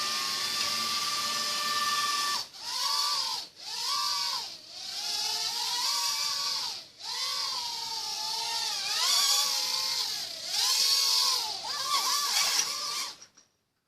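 Air Raiders Discovery mini quadcopter's motors and propellers whining: a steady hover tone at first, then rising and falling in pitch with the throttle and dropping out briefly several times. The motors stop suddenly near the end as the drone comes down in a rough landing.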